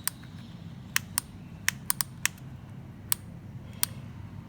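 Sharp plastic clicks at irregular intervals, about nine in four seconds, from working a manual solder-feed soldering gun while threading solder wire into its feed.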